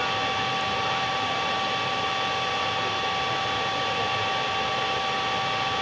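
Steady, even hiss with two faint, constant high hums underneath; nothing starts, stops or changes.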